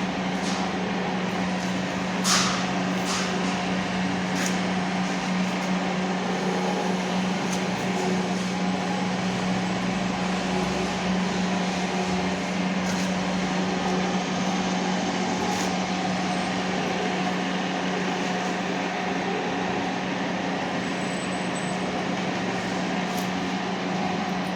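Niigata universal milling machine running with a steady hum, with a few sharp clicks, the loudest about two seconds in.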